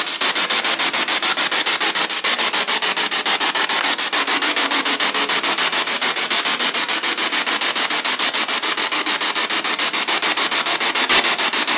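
Spirit box (radio sweeping rapidly through stations) played through a portable Bluetooth speaker: loud hissing static chopped into quick, even pulses several times a second.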